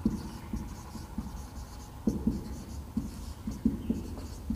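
Marker pen writing on a whiteboard: a run of short, irregular strokes and taps as letters are written.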